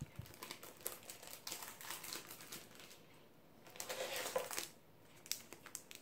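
Soft crinkling and rustling of clear plastic wrapping as wrapped planners and notebooks are shifted and lifted out of a cardboard box. There is a louder burst of crinkling about four seconds in, then a few light ticks near the end.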